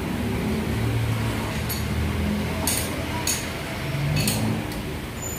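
Diesel injection pump test bench running with a steady low mechanical hum while it drives a 6D16 injection pump for calibration. About five short, sharp clicks sound over the later part.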